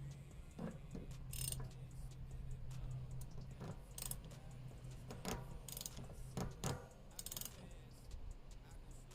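Scattered metallic clicks and clinks of tools on a bicycle's rear wheel and cassette during hand maintenance, about a dozen short sharp sounds at irregular intervals. Faint background music with a low steady hum.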